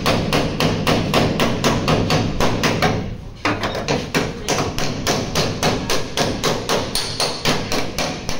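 Rapid, even hammering with a body hammer on a crumpled steel roof pillar of a crash-damaged car, about five blows a second, straightening the bent metal. The blows stop briefly about three seconds in, then carry on.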